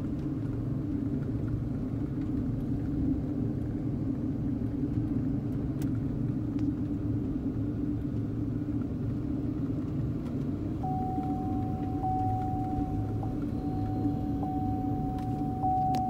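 Car driving along a street, heard from inside the cabin: a steady low rumble of engine and tyre noise. About two-thirds of the way in, a thin steady high tone joins, with a slight tick roughly once a second.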